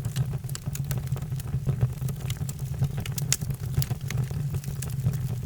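Wood fire crackling in a fireplace: irregular small pops and snaps over a steady low rumble of burning.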